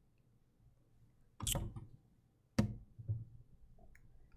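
Quiet room tone broken by a short rustle about a second and a half in and a sharp click with a low knock about a second later: handling noise at a lectern microphone.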